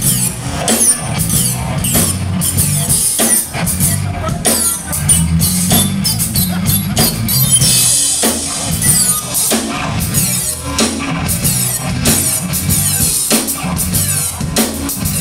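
Rock band playing live and loud, the drum kit to the fore with steady kick and snare hits and crashing cymbals under the bass and distorted guitars.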